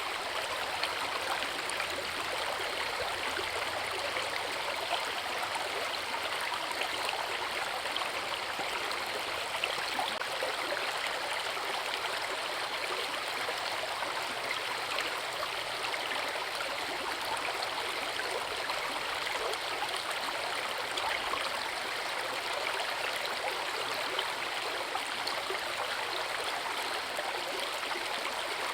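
Forest river flowing with a steady rush of water, even and unbroken throughout.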